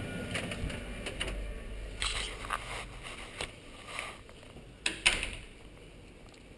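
Scattered clicks and knocks, with a low rumble through the first two seconds and the loudest knock about five seconds in.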